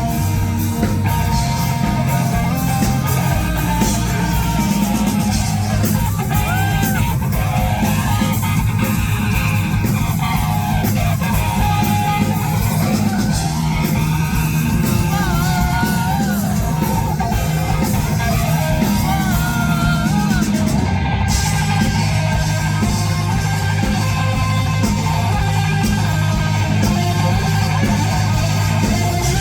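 Live rock band playing a song loud, with electric guitars and a singer's voice over the band.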